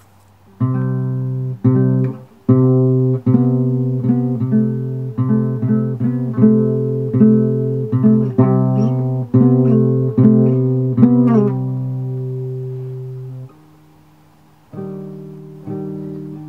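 Soundtrack music: a plucked guitar playing a slow line of sustained, ringing notes that starts about half a second in, stops briefly near the end, then picks up again.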